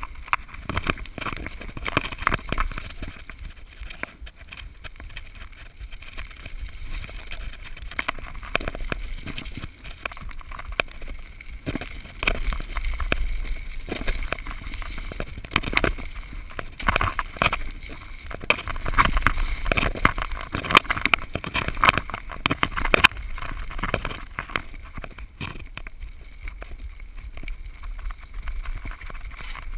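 Mountain bike descending a rough dirt trail: tyres running over dirt and stones, and the bike rattling with frequent sharp knocks over bumps. There is a low rumble of wind on a GoPro's microphone.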